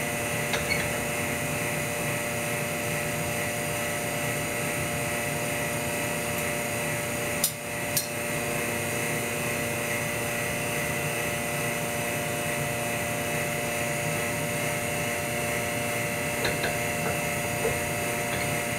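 Steady drone of a small motor running, with a few light ticks and two sharp clicks about seven and a half and eight seconds in.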